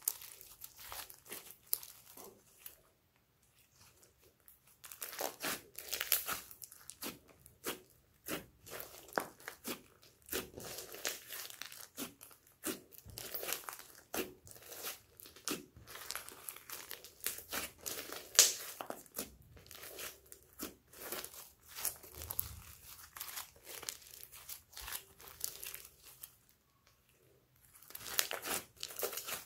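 Thick slime packed with small foam beads being squeezed and stretched by hand, giving dense, irregular sticky crackles and pops. There are brief lulls a few seconds in and near the end.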